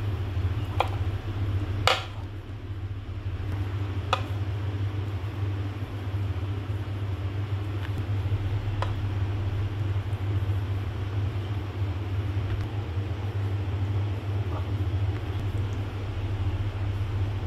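A steady low mechanical hum, with a few sharp clicks of a utensil against the dish in the first nine seconds, the loudest about two seconds in.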